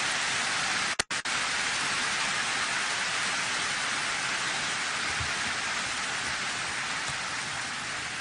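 Large audience applauding, a steady dense clapping that fades slightly towards the end, with a brief drop-out in the sound about a second in.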